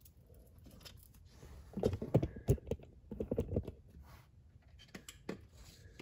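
Light clicks and knocks from hands handling a wiring harness and its plastic connectors, as the wires are routed around the front shock. The clicks come in a quick run starting about two seconds in and lasting about two seconds, followed by a few single clicks.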